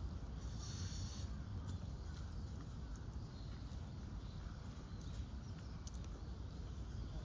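Outdoor ambience: a steady low rumble, with a brief high-pitched hiss lasting under a second at about a second in.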